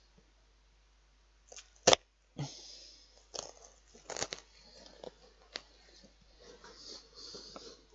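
Kitchen knife cutting a raw onion on a plate: a sharp click just before two seconds in, then irregular knocks of the blade and crisp crunching of the onion layers being sliced.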